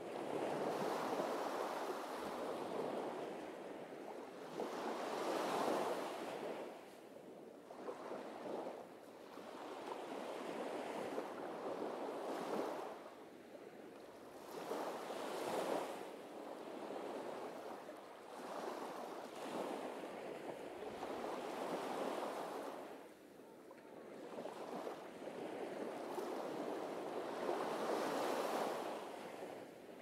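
Small sea waves breaking and washing up a sandy beach. The surf swells and fades in a slow rhythm, one wave every three to four seconds.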